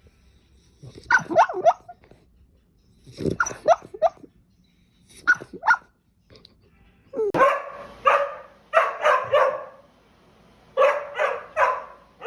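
A dog barking repeatedly in short runs. The fuller, louder runs of barks come in the second half.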